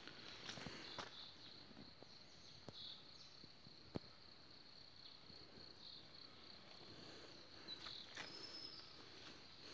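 Faint, steady high-pitched insect trilling, with a few soft ticks here and there.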